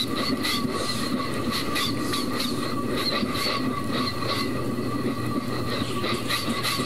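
Vocal imitation of a train running along the track: a steady whine with a rapid clatter repeating over it.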